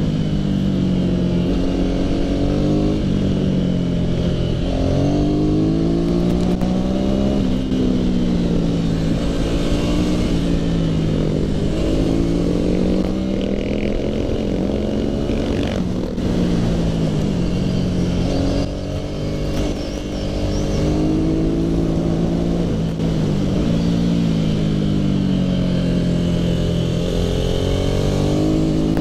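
Motorcycle engine heard from the rider's seat at speed, its pitch climbing as it accelerates and falling back as the throttle eases, several times over.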